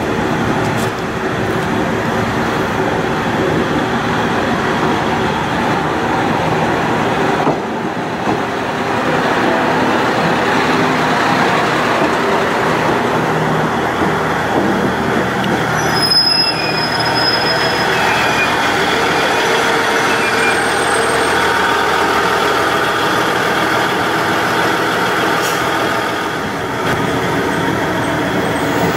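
KiHa 110-series diesel railcar rolling slowly into a station, its diesel engine running and wheels rumbling over the rails. A brief high-pitched squeal comes about halfway through.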